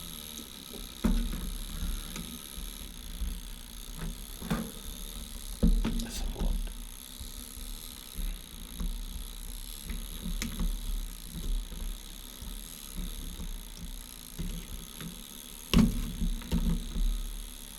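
Scattered knocks and clicks of handling on a workbench, a few sharper knocks among them, over a faint steady high hum.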